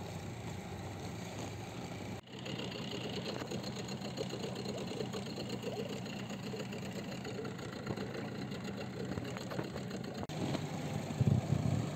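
Small outboard motor on an inflatable boat running steadily, a low even hum, briefly cutting out twice.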